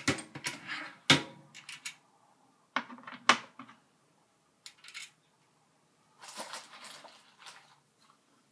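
Single-stage reloading press cycled to seat a bullet on a 7.62x25mm Tokarev case: sharp metallic clicks and clunks from the ram and handle linkage, loudest about a second in and about three seconds in, followed later by softer handling noise.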